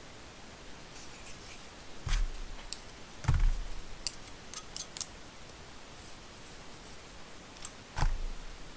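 Small RC car parts and tools handled on a workbench: scattered light clicks and ticks, with three dull knocks, about two seconds in, a little after three seconds, and near the end.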